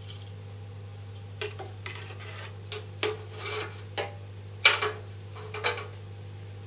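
Steady low hum of running equipment, with a scattered handful of short, sharp clinks and scrapes like hard objects knocking together; the loudest comes about three-quarters of the way through.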